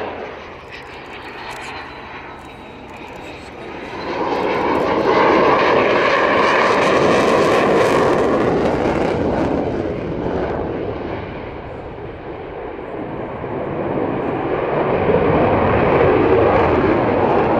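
Royal Netherlands Air Force F-16 fighter jet flying a display pass, its turbofan engine a loud rushing noise. The noise builds about four seconds in, eases off for a few seconds past the middle, then swells again near the end.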